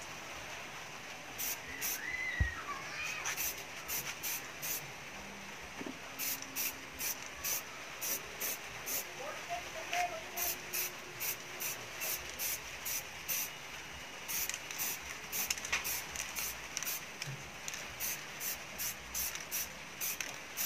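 Aerosol spray-paint can sprayed in many short bursts, up to about two a second, onto a perforated metal speaker grille. There is a single thump about two seconds in.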